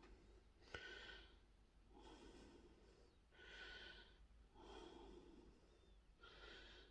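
A person's faint breathing close to the microphone, about five soft breaths a second or so apart, with a small click just under a second in.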